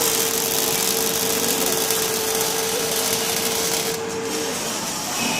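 Robotic welding arc crackling and hissing over a steady machine hum; the arc cuts out about four seconds in and the hum stops a moment later.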